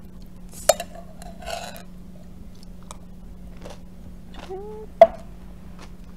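Metal spoon clinking against a drinking glass as thick smoothie and granola are scooped out, with small chewing and mouth sounds between the clinks. The sharpest clink, with a short ring, comes about five seconds in, just after a brief rising hum. A steady low hum runs underneath.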